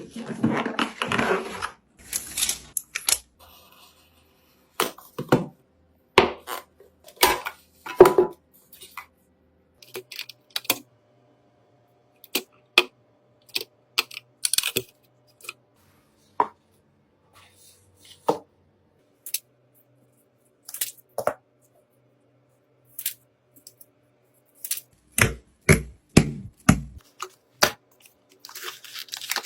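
Irregular sharp clicks and knocks of computer parts being handled and fitted together, with short silent gaps between them. A brief rustle opens it, and a quick run of knocks comes near the end.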